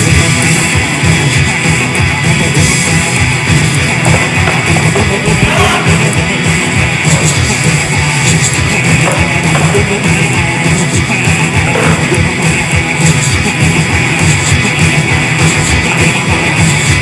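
Loud rock music with electric guitar and a driving drum kit, no vocals.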